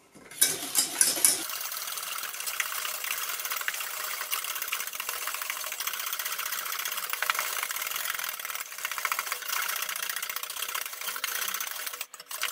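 Wire whisk beating eggs and sugar fast in a stainless steel saucepan, the wires clattering against the metal pan in a rapid, even rhythm. It stops shortly before the end.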